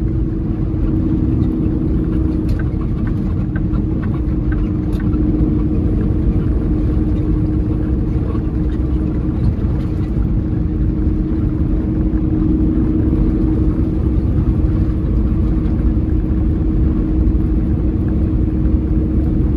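Peterbilt 389 semi truck on the move: its diesel engine drones steadily under a low road rumble.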